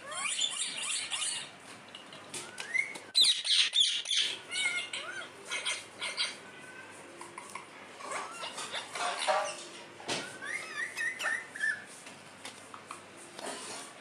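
Pet parakeets chirping and squawking in short calls and rising whistles, with one loud harsh squawk about three seconds in.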